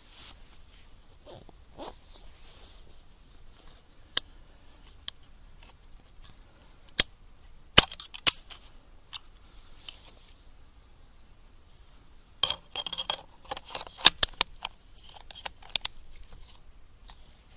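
Handling noise on a rifle-mounted Pulsar Thermion thermal scope: scattered sharp clicks and ticks, then a dense run of them a little past the middle.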